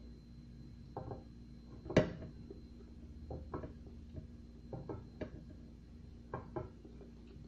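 Scattered small clicks and wet mouth noises of someone eating a banana straight off a plate without hands, with one sharper, louder knock about two seconds in, over a steady low room hum.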